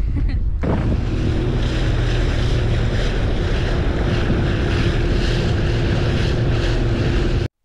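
Heavy wind buffeting the microphone, with a faint steady engine hum underneath; it cuts off abruptly near the end.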